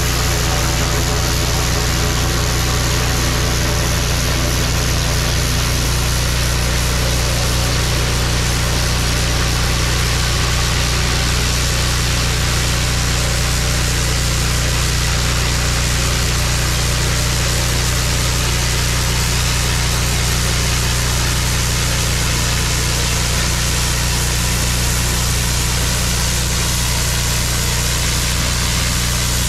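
Hustler 4200 psi gas-engine pressure washer running steadily, with the wand's high-pressure spray hissing against a concrete driveway.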